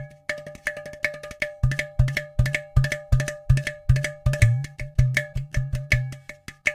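Background music built on a quick percussion rhythm: fast, even strikes, about five a second, with deep drum hits and steady tones held above them.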